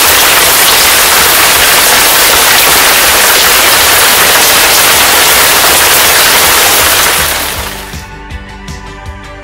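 A loud, steady rushing noise that fades out about three-quarters of the way through. Background music with plucked guitar and a beat takes over near the end.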